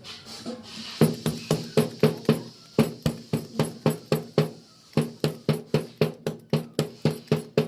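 A rapid series of sharp knocks, about four a second, each with a short low ring, starting about a second in over a faint steady hum.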